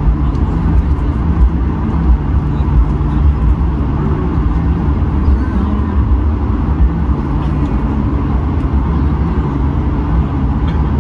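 Cabin noise in a Swiss Airbus A220-100 rolling out on the runway after landing: a steady low rumble from the wheels on the tarmac under the running Pratt & Whitney PW1500G geared turbofans, with a wavering low hum.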